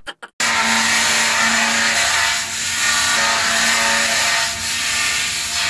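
Rustibus electric deck descaling machine running over a steel deck, a loud, steady noise as it strips rust and broken paint, starting abruptly about half a second in.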